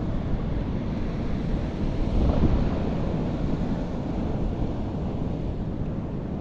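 Sea water washing and slapping around a kayak in foamy, choppy water, with wind buffeting the microphone in a steady low rumble.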